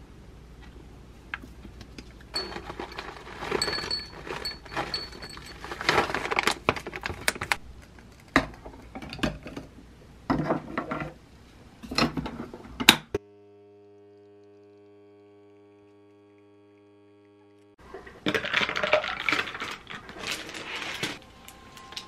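Kitchen handling sounds: clinks, taps and rustling as toppings go onto a glass bowl of Greek yogurt and an iced drink is made. About thirteen seconds in they stop for a steady low hum that lasts about four seconds, then a burst of clattering follows.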